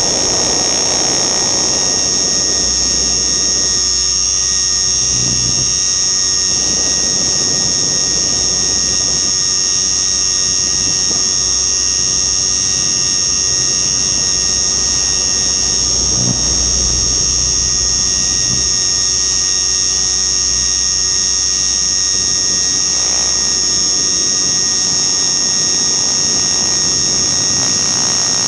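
Radio-controlled helicopter in flight, its motor and rotor running with a steady, loud high-pitched whine, over low wind rumble that rises and falls.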